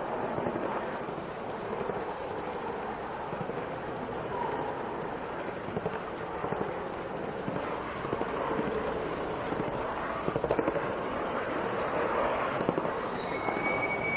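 Gauge 1 live-steam 0-6-0 tank locomotive, two-cylinder with Joy valve gear and alcohol-fired, running on the track while hauling a rake of heavy wagons: a steady hiss with many small rapid clicks. A brief steady high tone comes near the end.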